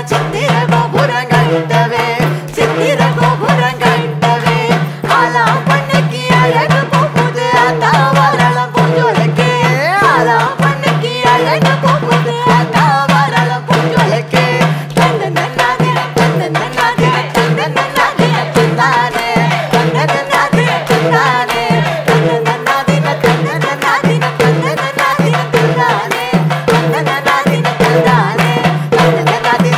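Tamil folk music: fast, driving hand-drum rhythm over a steady low drone, with a wavering sung melody on top.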